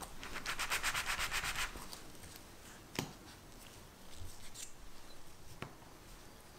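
Plastic fluted round pastry cutter twisted into rolled pie dough: a quick rasping rub of about ten strokes a second for just over a second, followed later by two light knocks.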